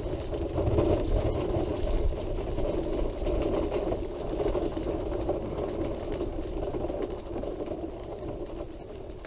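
Wheelchair on the move along a path, a steady rumbling running noise from its wheels and drive that eases off a little near the end.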